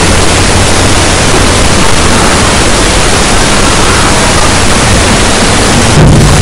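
Loud steady hiss with a low hum beneath it.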